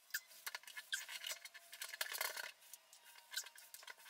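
Faint, irregular ticks and scratches from handling a paint roller and tray while priming a ceiling.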